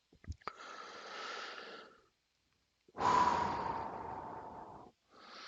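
A man breathing out audibly close to the microphone: a soft exhale, then a louder, long sigh that starts sharply and fades away, and another faint breath near the end. A few light clicks come at the start.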